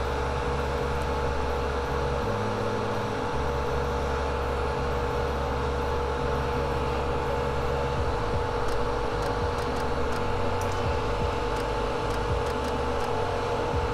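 Hot air rework station blowing steadily: an even rush of air with a steady hum, heating a flash drive's controller chip to desolder it from the board.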